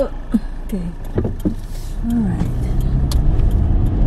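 Car pulling out from a stop and accelerating, heard inside the cabin: engine and road rumble grow louder from about two seconds in. A few short sliding tones sound in the first second and a half.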